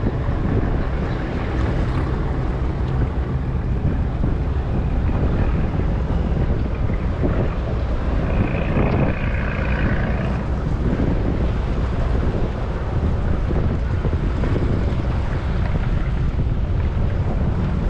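Boat engine running steadily under way, a low rumble mixed with wash of water and wind buffeting the microphone.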